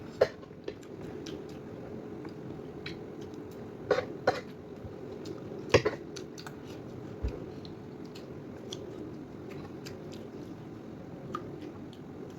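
Eating at a table: occasional sharp clicks of a spoon against a dish and quiet chewing, over a steady low background hum.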